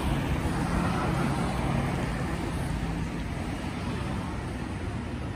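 Road traffic at a city intersection: cars running and passing, with a low engine hum that fades out about halfway through.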